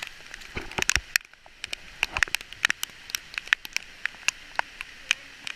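Heavy rain pouring down: a steady hiss with many irregular, sharp taps of raindrops striking close to the microphone.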